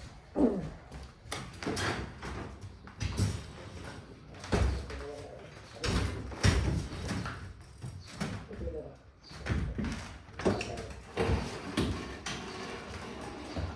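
Old white oak floorboards being pried up and handled: irregular wooden knocks and bangs, about a dozen, with a brief creak near the start.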